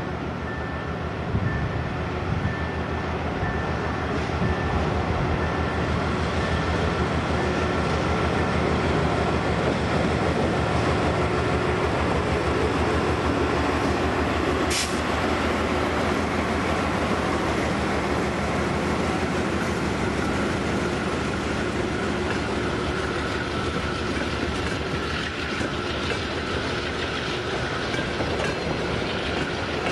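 C30-7Ai diesel locomotive approaching and passing with its diesel engine running, then a long string of open freight wagons rolling by on the track. A single sharp clank about halfway through.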